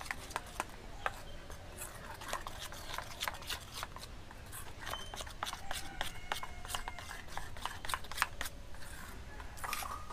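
A metal spoon stirring a thick paste of crushed Oreo biscuits and milk in a stainless steel bowl, with irregular clicks and scrapes of the spoon against the bowl.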